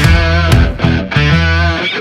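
Loud rock backing music led by electric guitar, with sharp drum-like hits.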